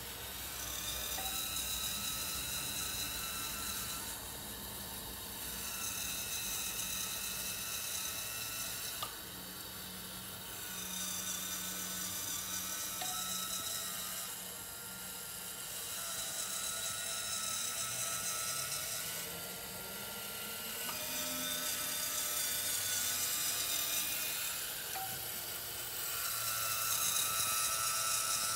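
Small electric drive motors and gearing of a motorised scale-model bucket-wheel stacker-reclaimer whining as the bucket wheel turns and the boom slews. The high whine swells and eases about every five seconds, with an occasional faint click.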